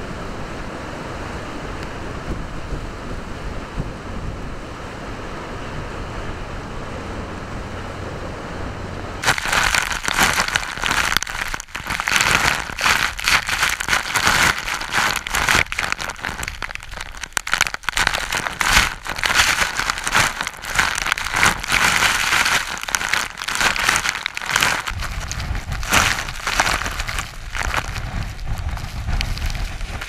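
Typhoon-driven waves crashing against a harbour wall with strong wind, a steady rush of surf and gusts. About nine seconds in the sound turns abruptly harsher and brighter: a dense crackling of wind-blown spray and rain striking the camera close to the breaking waves, rising and falling in uneven surges.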